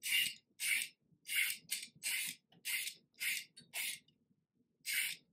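A vegetable peeler scraping down a raw carrot in quick repeated strokes, about eight of them, each a short scrape, with a brief pause shortly before the end.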